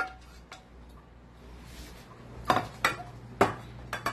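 A plate and a wooden spatula knocking and clinking against a stainless steel mixing bowl as cooked quinoa is scraped in. There is a sharp clink at the start, then a few louder knocks in the second half.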